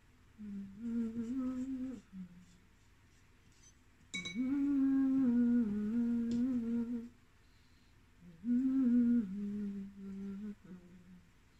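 A woman humming a slow tune in three phrases with short pauses between them, holding each note steadily before stepping to the next; the middle phrase is the loudest.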